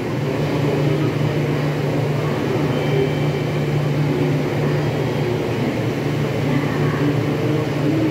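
Steady low hum of a stationary E6 series Shinkansen train standing at the platform, its onboard equipment running. A faint high tone comes in about three seconds in.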